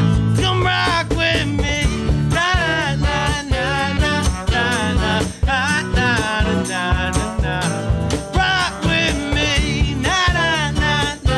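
Live jazz-influenced band playing an instrumental passage: a melodic line that slides and bends over a steady drum beat with cymbals, bass guitar and keys.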